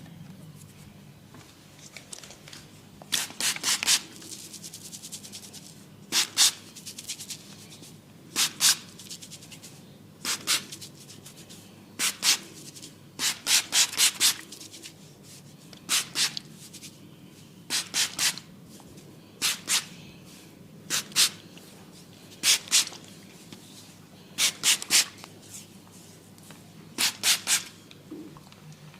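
Hands rubbing and working oiled hair and scalp in quick, sharp strokes, in clusters of two to four about every couple of seconds.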